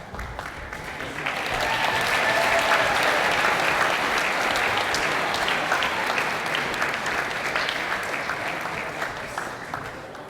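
Audience applauding in a large hall: the clapping swells about a second and a half in, holds, then slowly dies away near the end.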